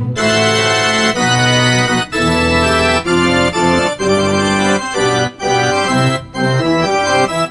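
Background music of sustained, organ-like keyboard chords that change about once a second, with brief breaks between them.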